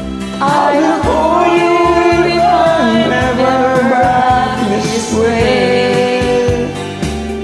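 Music: a slow song with held, wordless singing over a karaoke backing track.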